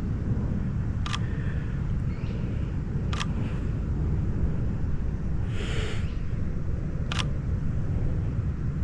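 Camera shutter clicking three times, a couple of seconds or more apart, over a steady low background rumble, with a brief hiss a little after the middle.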